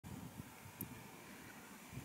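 Wind buffeting the microphone in uneven low thumps over a faint, steady rush from the distant Boeing 747-400's four turbofan engines on approach. A brief high tick sounds just under a second in.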